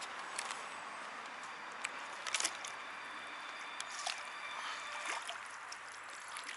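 A landing net dipped and moved through the water at the bank, with light sloshing and dripping splashes scattered over a steady background hiss.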